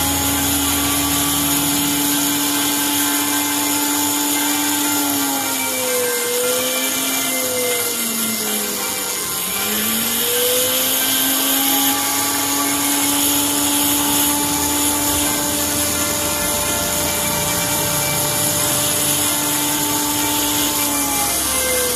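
Handheld rotary tool with a fine burr grinding a small piece of clear quartz: a steady high whine over a gritty hiss. The whine's pitch sags and recovers a few times between about five and ten seconds in, and once more near the end.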